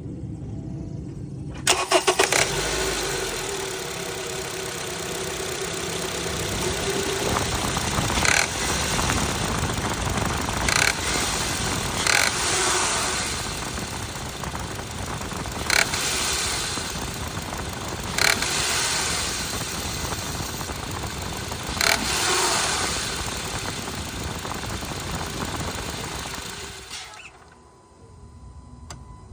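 2013 Honda CR-V engine cranking and starting about two seconds in, then running with a steady hiss and a few brief louder surges. It shuts off near the end. The owner suspects a bad accessory belt tensioner.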